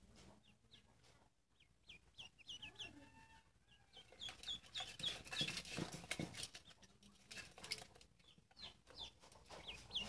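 Ducklings peeping: short, high, falling peeps in scattered runs. Around the middle there is a patch of scuffling as they shift about in the metal basin.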